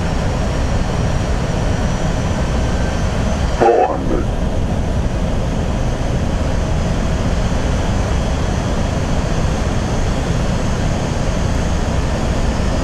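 Steady rushing cockpit noise inside an Airbus A320 flight deck on final approach, the airflow and engine sound heard on the flight deck. A short voice-like call breaks in once, about four seconds in.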